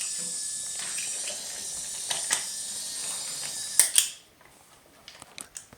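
Toy pieces being handled: a few sharp clicks and knocks over a steady high hiss, which stops right after a quick double click about four seconds in.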